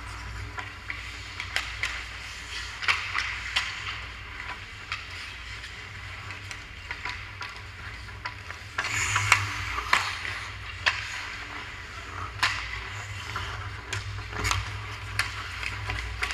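Ice hockey skates scraping and carving on the ice, with sharp clacks of sticks and puck throughout and a louder scraping burst about nine seconds in. A steady low hum runs underneath.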